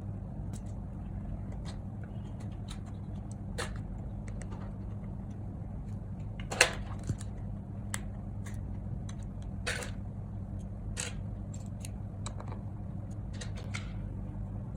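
Scattered small sharp clicks at irregular intervals over a steady low hum: flex-cable connectors being unclipped and pried off inside an opened MacBook Air M1.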